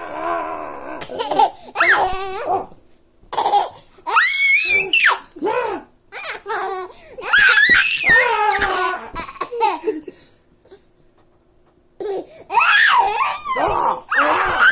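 A baby laughing in repeated high-pitched bursts, breaking off for about two seconds near the end before laughing again.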